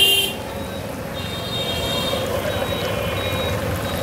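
Road traffic running steadily, with a high held tone from about a second in that stops after about two seconds. A brief loud clatter right at the start.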